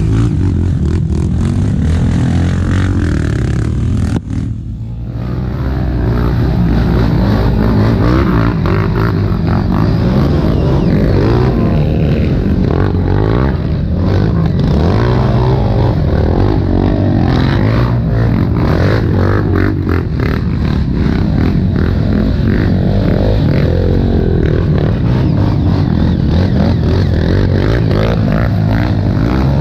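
Honda CRF450X's single-cylinder four-stroke engine working under constantly changing throttle, the revs rising and falling. It eases off briefly about four seconds in.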